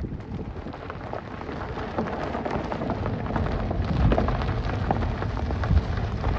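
Wind buffeting the phone's microphone: a steady low rumble with scattered crackles.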